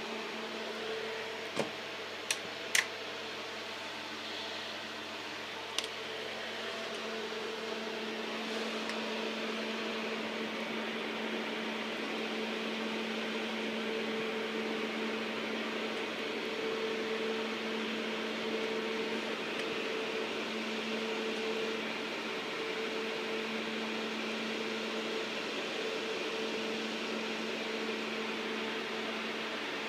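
Cooling fan of an argon ion laser setup running steadily, a rushing hum with a low drone and its octave above. A few sharp clicks come in the first six seconds.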